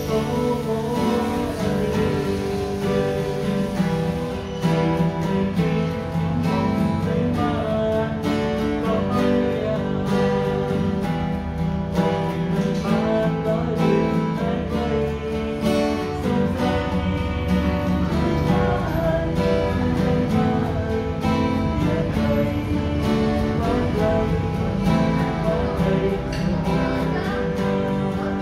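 Three acoustic guitars playing a song together: strummed chords under a picked melody line.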